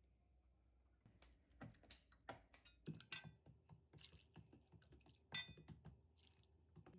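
Faint clicks and clinks of kitchenware being handled, starting about a second in, with two light strikes that ring briefly like a dish or metal utensil.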